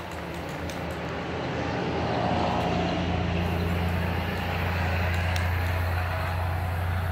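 An engine running with a low steady rumble, growing louder over the first two or three seconds and then holding.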